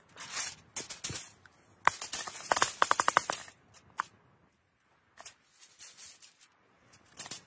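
Aluminium foil crinkling as it is handled, then chopped vegetables tipped from a metal camping pot onto the foil: a dense run of clicks and taps about two to three seconds in, with a few single taps after.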